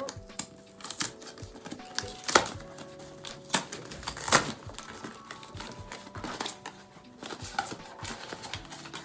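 Cardboard mailing box being torn and pulled open by hand: a string of sharp rips and snaps of cardboard, the loudest about two and a half, three and a half and four and a half seconds in.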